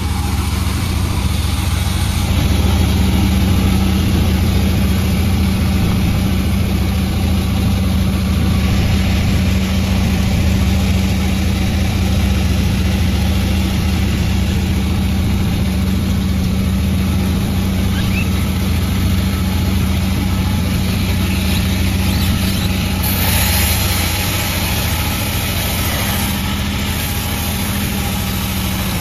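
Panda36 sawmill running with a steady low hum. Late on, a brighter hiss joins for a few seconds.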